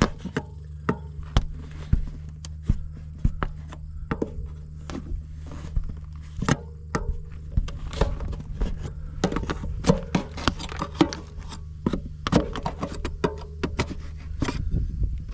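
Slim pry bar working the metal face frame of an RV water heater loose from the trailer siding, where mastic holds it: irregular sharp metal clicks, knocks and scrapes, over a steady low hum.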